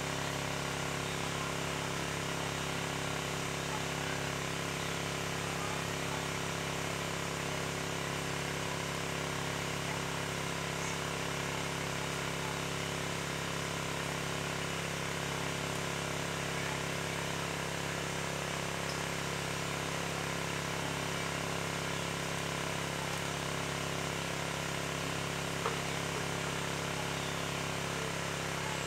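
A steady, unchanging mechanical drone: several held tones over a constant hiss, with one faint click near the end.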